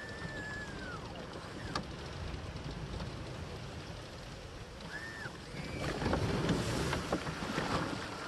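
Tracked vehicle running over dry grass and driving into a stream, with a steady rumble and wind on the microphone. Water splashing grows louder from about six seconds in as the tracks enter the water. A short rising-and-falling whistle comes at the start and again about five seconds in.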